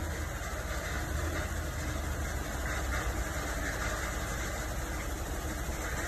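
Sand washing plant machinery running steadily: a continuous low hum and rumble of motors and the vibrating screen, with an even noisy wash over it.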